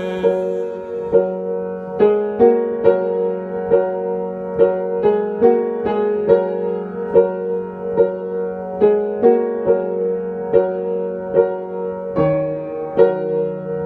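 Instrumental break of a song: a keyboard plays a steady run of notes over a held low note, with no singing.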